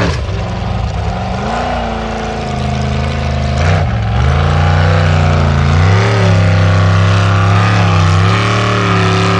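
Engine of an unlimited-class Formula Offroad buggy working hard on a steep loose gravel climb, its revs dropping and rising again and again as the spinning tyres bite and slip.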